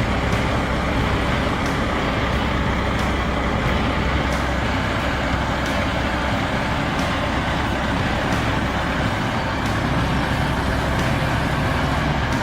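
Heavy recovery truck's diesel engine running steadily, with faint clicks now and then.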